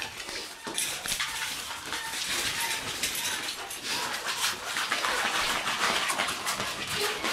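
Shiba Inu puppies scrambling and tussling over a fabric play tunnel: a continuous rustle of the tunnel fabric mixed with many small scrabbling clicks of claws.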